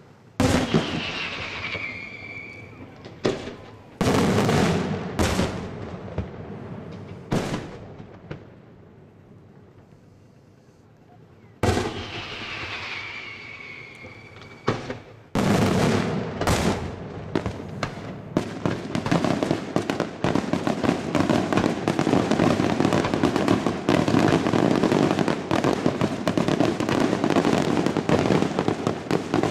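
Daytime fireworks display: single loud aerial shell bursts, each dying away over a second or two, with a falling whistle after the first and again at about twelve seconds. From about fifteen seconds in, a dense barrage of rapid bangs and crackling runs on without a break.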